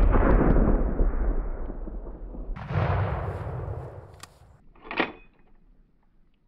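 Deep boom of an exploding target rolling on and slowly fading. A second, broader boom swells up about two and a half seconds in and dies away, then a single short sharp knock comes about five seconds in.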